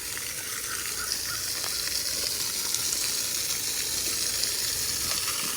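High-pressure city water spraying and gushing out of a broken plumbing fitting: a steady hiss that grows slightly louder over the first couple of seconds.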